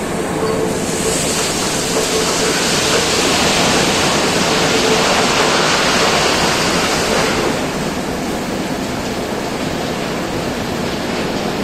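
Coal pouring from a rapid loading system's chute into a rail wagon: a loud, steady rushing that swells about a second in and eases off after about seven and a half seconds, with a faint steady hum beneath.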